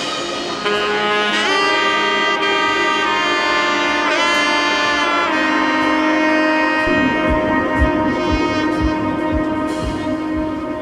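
Background music: sustained saxophone-like brass notes with sliding pitch, joined about seven seconds in by a low steady beat.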